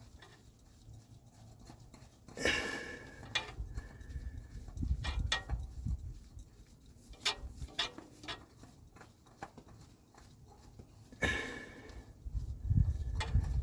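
Handling noise while a new spin-on oil filter is screwed on by hand: scattered light clicks and scrapes, with two louder brief rustling scrapes, one a couple of seconds in and one near the end.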